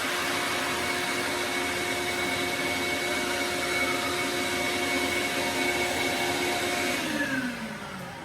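Electric saw motor running steadily, then switched off about seven seconds in and spinning down with a falling whine.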